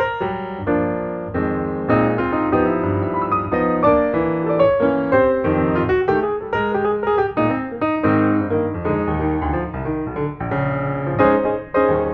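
Background piano music, a quick run of chords and melody notes.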